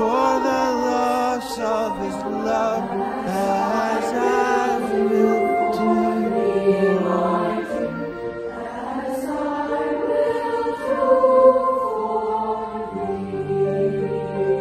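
Voices singing a traditional folk song in harmony with a wavering vibrato. Near the end, steady held low tones enter beneath.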